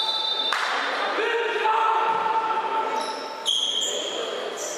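Basketball sneakers squeaking on a hardwood court, in several sharp, held squeals, with a ball bouncing, in the echo of a large sports hall.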